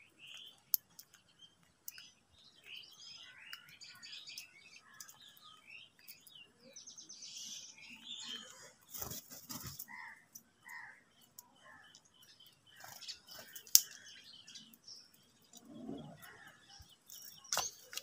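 Birds chirping and calling in short notes around a group of feeding house crows, with sharp clicks at intervals, the loudest about two-thirds of the way through, from beaks striking a plastic bowl.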